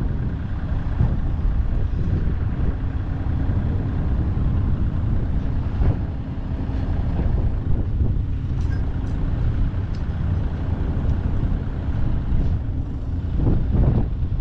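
Heavy truck running steadily on the road: an even low engine and road rumble with a faint steady drone.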